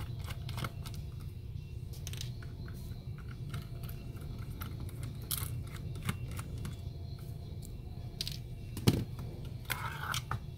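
Small clicks and scrapes of a screwdriver and fingers on a circuit board and its black plastic housing, as screws come out and the board is worked loose. One sharper click about nine seconds in is the loudest, followed by a short scrape. A steady low hum runs underneath.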